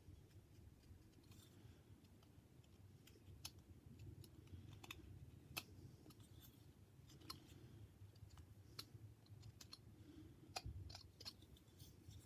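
Faint, irregular clicks of a small whittling knife nicking and slicing small chips from a hand-held wooden carving.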